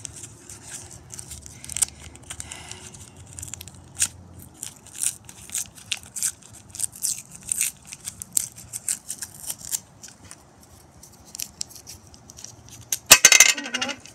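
Paper-and-foil wrapper of a roll of Mentos mints being picked at and torn open by fingers: a string of short crinkles, rips and ticks, with one louder burst of rustling noise near the end.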